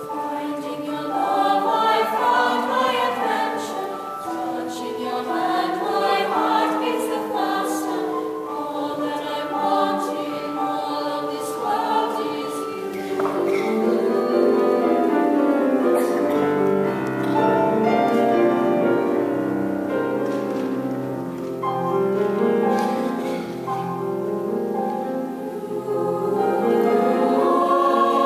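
Mixed youth choir singing in harmony, in a choral arrangement of a jazz standard, accompanied on grand piano.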